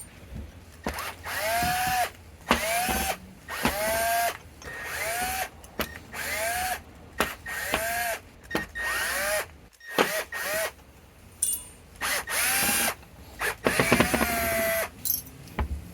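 Cordless drill run in about nine short bursts, its motor whining up in pitch at the start of each, with a pause of about two seconds near the middle.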